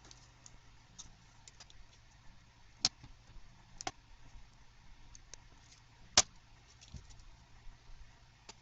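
A few sharp, scattered clicks of wire strippers working on the ends of a thermal protector's leads, the loudest about six seconds in, over a faint steady low hum.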